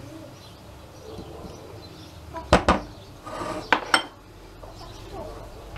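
A spatula knocking against a stainless steel cooking pot as butter is put into it: two sharp clacks about two and a half seconds in and two more about a second later.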